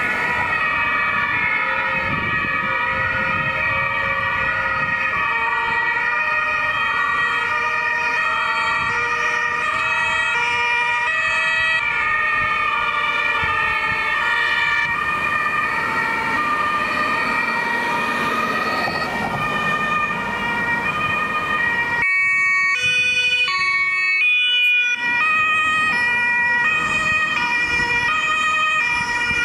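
Several German ambulance and emergency-doctor vehicle two-tone sirens (Martinshorn) sounding at once, their alternating notes overlapping out of step, over the engine and tyre noise of the passing vehicles.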